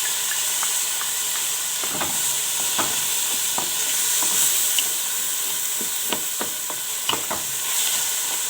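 Chopped onion and diced red pepper frying in oil in a cooking pot, a steady sizzle, with a utensil clicking and scraping against the pot as the vegetables are stirred.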